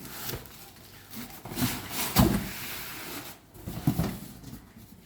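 Handling noises while unpacking: rustling with a few short knocks, loudest about a third and halfway through and again near the end.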